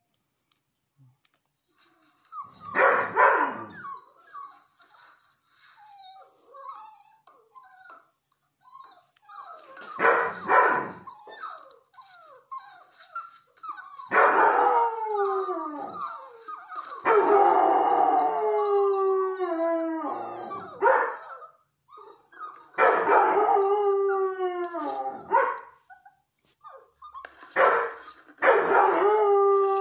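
Young Irish red and white setter howling. Two short cries and some faint whines come first, then from about halfway through several long howls, each sliding down in pitch, with short breaths between them.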